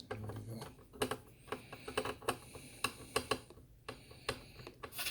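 Irregular light clicks and taps of small hardware being handled: screws, screwdriver, drive and cover plate during an SSD install in an Akai MPC Live II.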